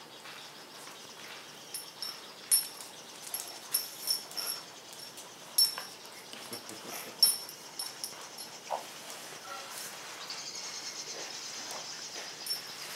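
Miniature schnauzer playing with a flat plush giraffe toy on a tile floor: a run of irregular sharp clicks and light jingles, with a short thin whine about two-thirds of the way through.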